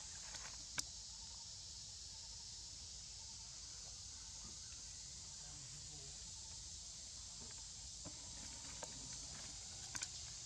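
Faint outdoor ambience in undergrowth: a steady high hiss over a low rumble, with one sharp tick just under a second in and a couple of small ticks near the end.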